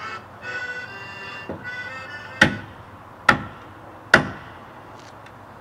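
Music plays for about two seconds and fades. Then there are three loud, sharp knocks on a wooden stage door, a little under a second apart, followed by a few faint ticks.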